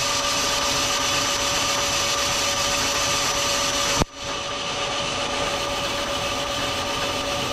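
Turret lathe running steadily with a steady hum and whine while a twist drill bores the tapping-size hole for an M4 thread into small bar stock. A single sharp click comes about four seconds in, with a brief drop in the sound.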